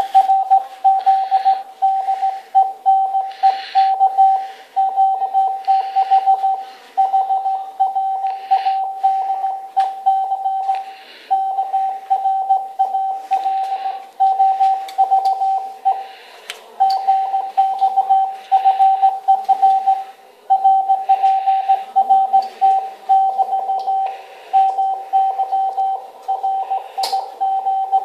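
Morse code heard from an amateur radio transceiver: one steady mid-pitched tone keyed on and off in quick dots and dashes, with short gaps between groups.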